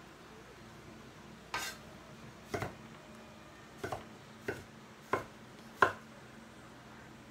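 Broad-bladed kitchen knife chopping on a wooden cutting board: about eight sharp knocks at an uneven pace, some in quick pairs, the last ones loudest.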